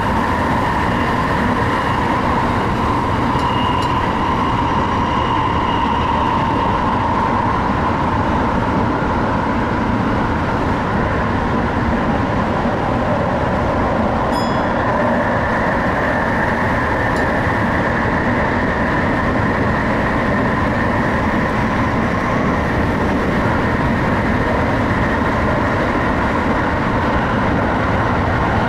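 Tsukuba Express TX-2000 series electric train running at speed, heard from inside the front of the train: a steady rolling rumble of wheels on rail with a whine that shifts to a higher pitch about halfway through.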